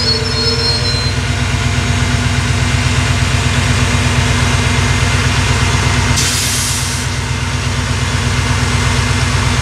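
Arriva SA106 diesel railbus standing at the platform with its engine idling in a steady low drone, the last of its brake squeal dying away in the first second. A short hiss of air comes about six seconds in.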